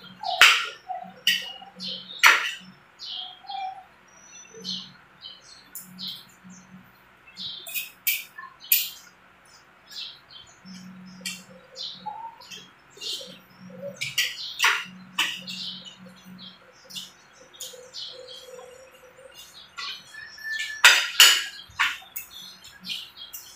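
Close-up eating sounds: a metal fork and spoon clicking and scraping against a ceramic plate at irregular moments, with chewing and mouth smacking in between.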